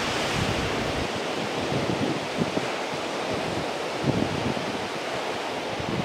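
Surf washing onto a rocky shore, a steady rushing hiss, with wind buffeting the microphone for about the first second.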